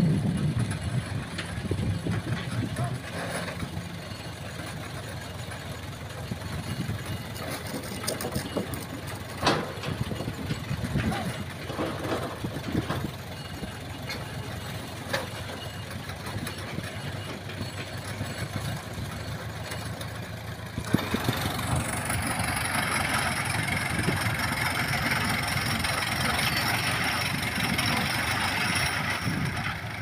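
Engine of a pile-driving rig's winch running steadily as the rig hoists a precast concrete pile, with a few sharp clanks. About two-thirds of the way through, a louder, even hiss suddenly sets in and stays.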